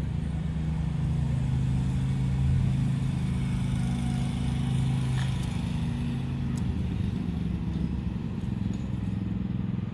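Steady low hum of an engine or motor running, with a few faint clicks.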